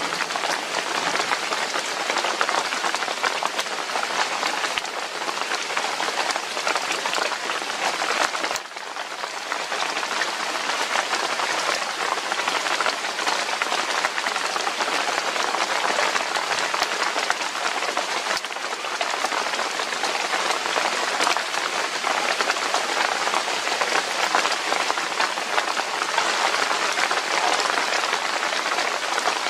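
Heavy rain falling steadily, a dense even hiss, with a brief dip in level about eight seconds in.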